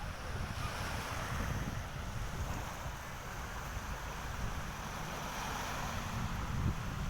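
Seaside wind buffeting the microphone in gusts over a steady wash of surf.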